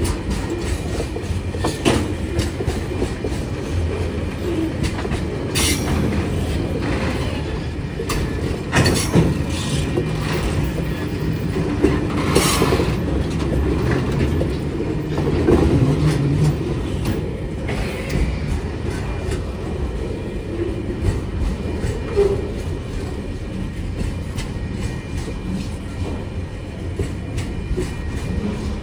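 Container wagons of a freight train rolling past: a steady low rumble of wheels on rail with irregular clicks and clanks, and a few brief, sharper, louder noises in the first half.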